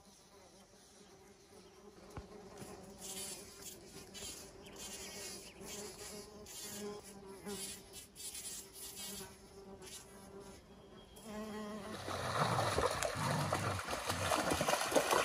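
A bumblebee buzzing steadily around the flowers. About twelve seconds in, it gives way to louder rushing creek water and splashing as a dog wades through the stream.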